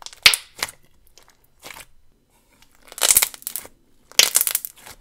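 A hand squeezing and kneading ultra-thick, glossy slime, which squishes in several short bursts. The longest and loudest bursts come about three and four seconds in.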